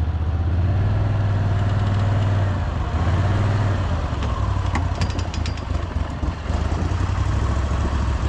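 An engine running steadily with a low hum, and a few light clicks about five seconds in.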